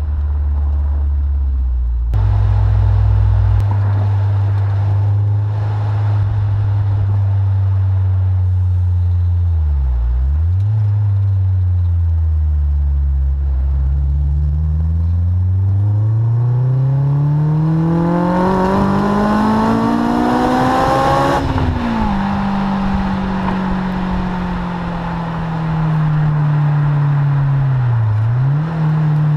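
Honda S2000's inline four-cylinder engine through a Supersprint aftermarket exhaust. It runs at a steady pitch, then revs climb steadily for about eight seconds before dropping off sharply and settling to a steady run, with two brief dips in revs.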